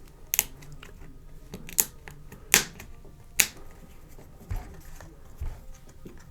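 Sharp plastic clicks, four spaced across the first three and a half seconds, as a pry tool works the plastic spine of a UE Megaboom speaker loose from its clips. Two dull knocks follow near the end.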